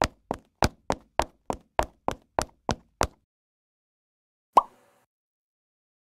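An even run of about a dozen sharp knocks, roughly three a second, that stops about three seconds in; after a pause, a single sharper knock with a short ringing tone.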